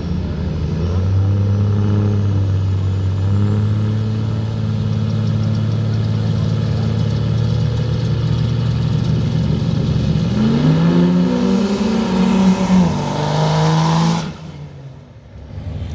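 Turbodiesel pickup trucks drag racing: engines held at a steady high drone on the start line, then launching about ten seconds in, with engine pitch climbing in steps through the gears. The sound drops away abruptly shortly after fourteen seconds.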